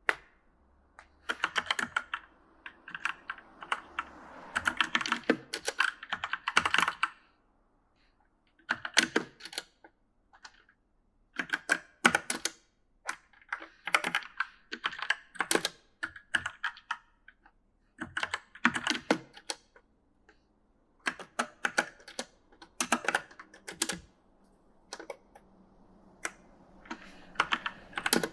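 Typing on an E-Element mechanical gaming keyboard: runs of quick key clicks broken by short pauses of about a second.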